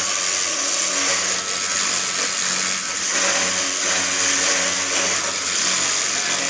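Small electric model-aircraft motor spinning a wooden-block propeller at a steady speed: a constant whirring hum under a strong airy hiss from the spinning block.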